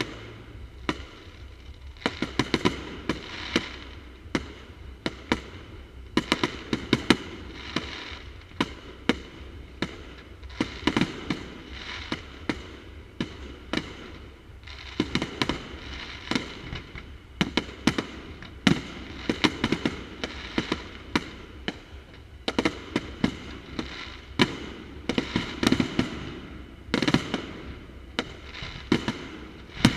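Fireworks display with shells bursting in quick succession: loud, sharp bangs come in dense clusters every second or two, with crackling between them.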